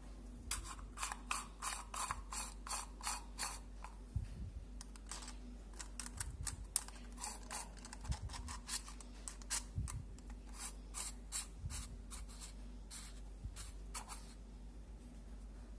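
Drill-bit holder chuck of an Optimum GQ-D13 drill sharpener being twisted by hand around a drill bit, ratcheting in runs of quick clicks, about four a second, with pauses and looser handling clicks between.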